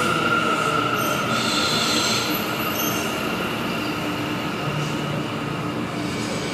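New York City subway train running through the station, its wheels squealing on the rails, with higher-pitched squeals for a couple of seconds about a second in.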